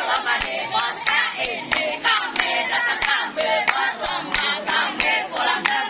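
A group of young voices singing together in unison, with rhythmic hand clapping about three claps a second.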